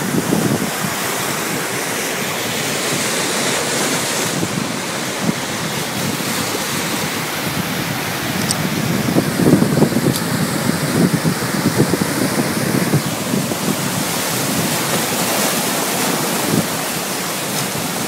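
Sea waves and surf washing steadily, with wind buffeting the microphone in uneven gusts that are heaviest around the middle.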